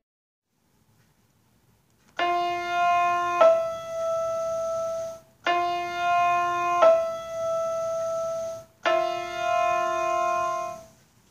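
Piano playing a major seventh three times as an ear-training example: an F, then the E eleven semitones above it about a second later, held, after about two seconds of silence. Each pair stops sharply.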